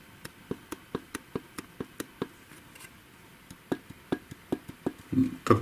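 Light metallic clicks, about four or five a second, in two runs with a pause of about a second between. This is a VAZ-21099 connecting rod being rocked side to side on its crankshaft journal to check its free play after the rod cap has been torqued.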